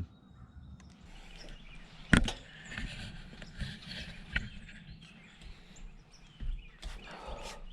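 Rustling and handling noises over a faint outdoor background, with one loud sharp click about two seconds in and a few softer knocks after it.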